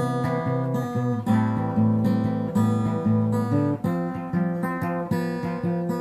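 Acoustic guitar played through a chord progression, the notes picked in a steady rhythm, recorded close on a Blue Nessie desktop condenser microphone.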